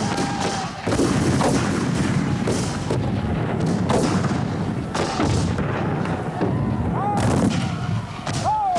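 Black-powder battle firing: a muzzle-loading field cannon and rifle-muskets going off in a string of shots about a second apart, each with a rolling echo.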